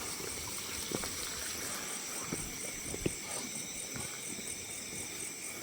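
Night insects, crickets chirring in a steady high pulsing chorus, with a few faint knocks roughly a second apart.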